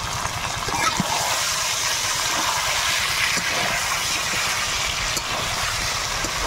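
Chicken pieces frying in spiced oil in an aluminium kadai while being stirred with a spatula: a steady sizzling hiss with a few light scrapes, over a low rumble. The masala has cooked down until the oil separates.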